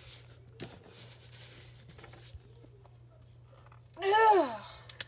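Faint rubbing and small plastic clicks as an action figure's head is pushed and worked onto its neck peg without snapping on, then about four seconds in, a loud, short groan of frustration, an "ugh".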